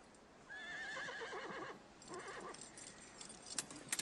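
A horse whinnying: one long quavering call starting about half a second in, then a shorter call, followed by a few sharp clicks near the end.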